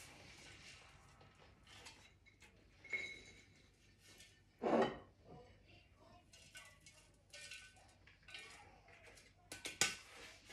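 Stainless-steel Thermomix TM6 mixing bowl handled upside down over a plate while grated parmesan is shaken out: scattered light knocks and clinks of metal against crockery, with a louder knock about halfway through and a sharp one near the end.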